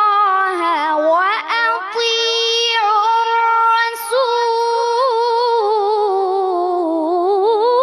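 A boy's high voice reciting the Quran in melodic tajweed style, drawing out long notes with wavering, ornamented pitch. Brief breaks come about a second and a half in and again at about four seconds.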